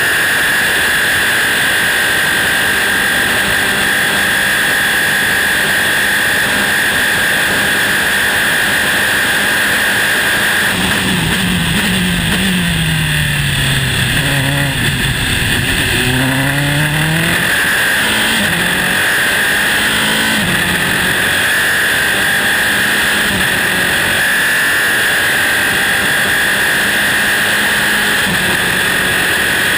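Dallara-Volkswagen Formula 3 car's 2-litre four-cylinder engine heard onboard, held flat out at high revs. About a third of the way in the pitch drops in several quick steps as the car brakes and downshifts, then climbs again through the gears and settles back to steady high revs.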